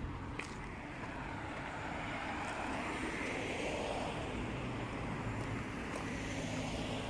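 Outdoor street ambience: a steady rushing vehicle noise that swells to its loudest in the middle, with a few faint clicks.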